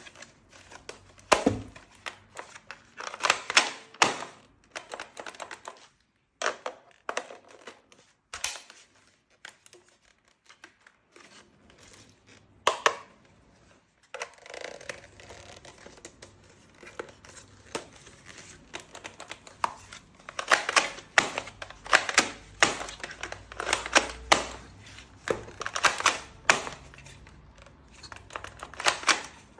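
Packaging being handled and torn open: irregular rustling and crinkling with scattered clicks and knocks, quieter for a few seconds around the middle.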